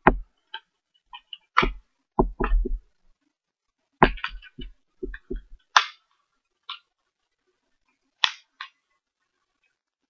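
A plastic custom case being snapped onto a Samsung Galaxy Prevail smartphone: an irregular series of sharp clicks and knocks, several with a dull thump underneath.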